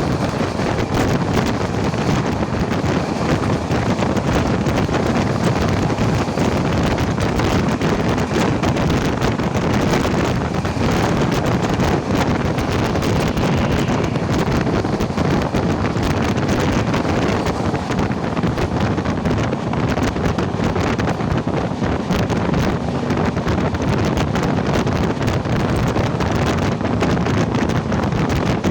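Wind buffeting the microphone of someone riding a moving passenger train, over the steady rumble of the train running at speed.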